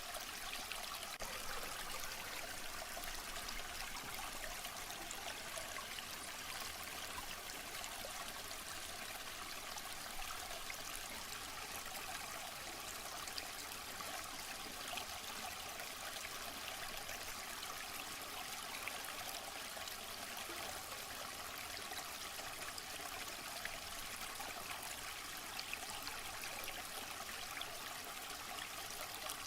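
Waterfall: a steady, unbroken rush of falling water, a continuous hiss with little low rumble.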